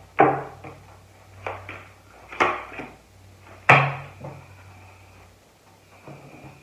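Tarot cards being handled and knocked against a hard surface: four sharp knocks, the last and loudest near the middle, each dying away quickly.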